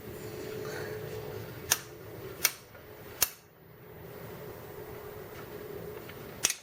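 Four sharp metallic clicks as a loosened left pedal is spun off a mountain bike crank arm with an Allen wrench, over a steady hum.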